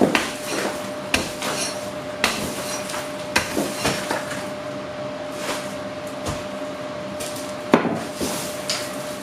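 A light clay straw wall being broken apart with hand tools: irregular knocks and crunches over a continuous rough noise, with a faint steady hum underneath.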